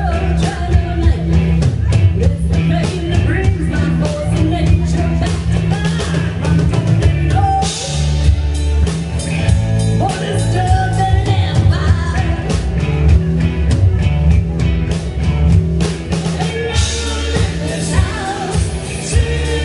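Live rock band playing loudly: a woman singing lead over electric guitars and a drum kit with frequent cymbal hits.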